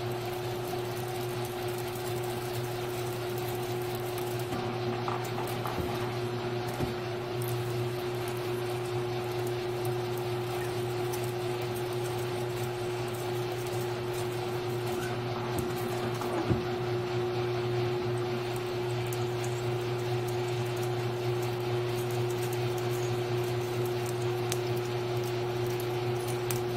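Grizzly G1007 mill-drill running with a steady hum while a twist drill bores into a 6061 aluminum bar held in the vise, with a few faint ticks.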